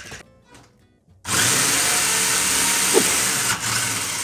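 Wltoys 144001 RC buggy's 550-size electric motor and drivetrain whirring at speed with the wheels off the ground. It cuts in suddenly about a second in, holds steady, and begins to fade near the end.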